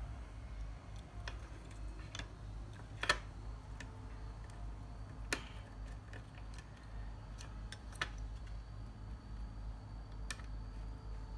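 Small scattered clicks and taps as wires are fitted and a screwdriver works the screws of a plastic terminal block, about six in all, the sharpest about three seconds in. A low steady electrical hum runs underneath.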